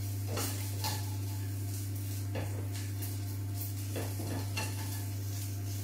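A spatula scraping and tapping in a frying pan as pieces of tofu are stirred and turned, in a series of short, uneven scrapes over a steady low hum.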